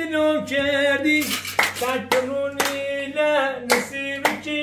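A high voice singing a slow melody in long held notes, with hand claps keeping time about twice a second from about a second in.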